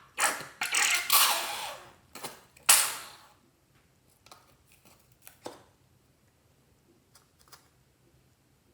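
Clear slime being squished and worked by hand, with a few loud crackling, squelching bursts in the first three seconds, then only faint scattered clicks and pops.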